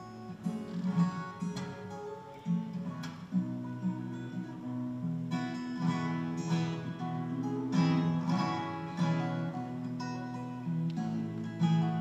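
Solo acoustic guitar played fingerstyle: a melody picked over sustained bass notes, with sharp strummed accents every second or so.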